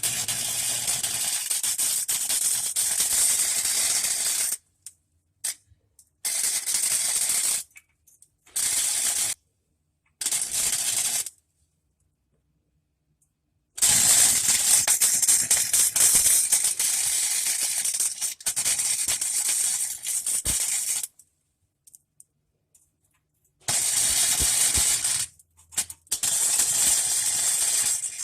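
A 90 amp flux-core wire welder's arc crackling as weld is run onto a broken exhaust resonator flange. It comes in a series of bursts a second to a few seconds long, the longest about seven seconds near the middle, with silences between as the trigger is released.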